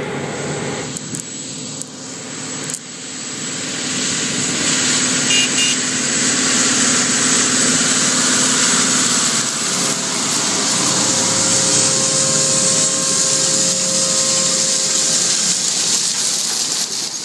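John Deere tractor pulling an air seeder drill, engine running steadily under load with a steady hiss from the machinery. It grows louder over the first few seconds as the rig comes close and passes.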